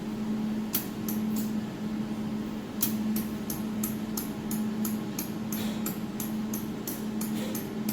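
Sharp clicks from the alignment knob of a desktop laser spot welder as it is turned step by step: a few about a second in, then two or three a second from about three seconds in. Underneath is a low hum from the machine that pulses on and off.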